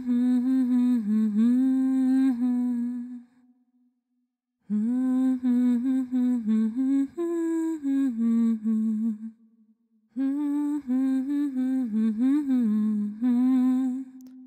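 A woman humming a slow, gentle melody without words, in three phrases with short pauses between them.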